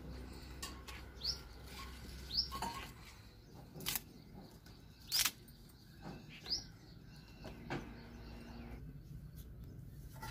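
Small bird chirping, short rising chirps repeated every second or so, with a few sharp clicks and snaps as dry sticks are handled in a clay wood-fired stove being lit.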